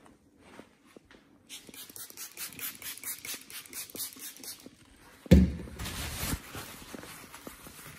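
Rustling handling noise and footsteps on a laminate floor as a handheld phone is carried along, then one loud low thud about five seconds in.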